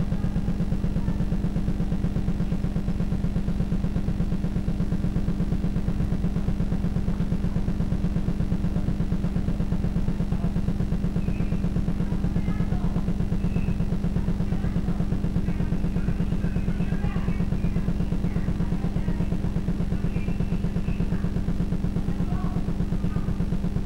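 A steady, loud machine hum with a fast, even flutter underneath, unchanged throughout, with faint scattered high chirps above it.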